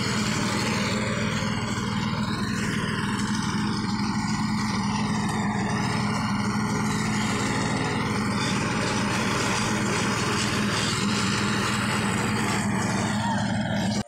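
Small engine of a walk-behind double-drum roller running steadily at an even speed as the roller compacts a loose gravel base.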